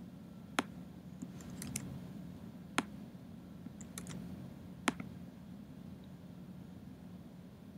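A computer mouse clicking a few separate times, a second or two apart, over a faint steady room hum.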